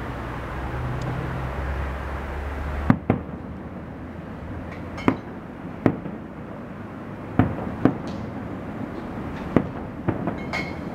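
Distant aerial fireworks shells exploding: sharp bangs at irregular intervals of roughly half a second to a second and a half, starting about three seconds in, with brief crackling from the bursts twice.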